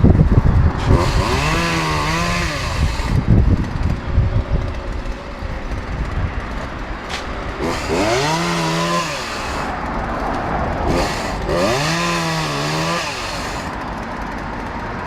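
Chainsaw revved up and back down three times, each rev lasting about two seconds.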